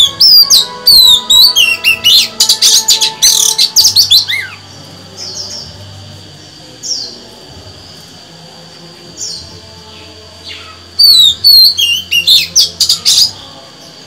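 Female oriental magpie-robin singing in a cage: a loud run of rapid, sweeping high whistled notes for the first four seconds or so, a few single notes, then a second run about eleven seconds in.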